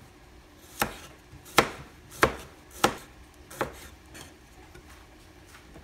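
Knife chopping slices off a cucumber onto a plastic cutting board: five sharp chops a little under a second apart, then a few faint taps.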